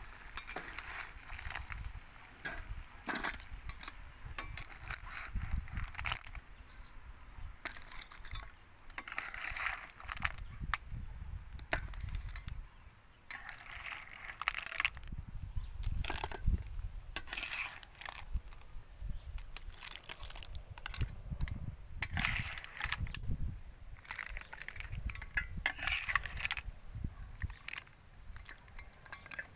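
Metal spatula scraping around a non-stick frying pan while cooked snail shells click and clink against the pan and each other as they are scooped out onto a plate, in irregular bursts with many sharp clicks.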